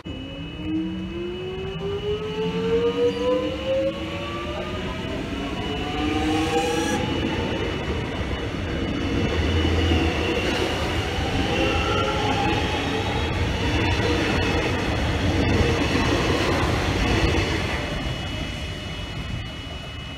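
X'Trapolis electric suburban train pulling away and running past: its traction motors whine in several rising tones as it gathers speed over the first seven seconds or so, then the carriages rumble by on the rails. A steady high-pitched tone sounds throughout.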